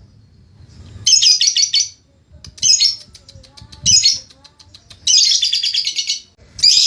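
Lovebird chattering in high-pitched bursts of rapid, repeated notes: a few short runs, then a longer fast chatter of about a second and a half starting about five seconds in.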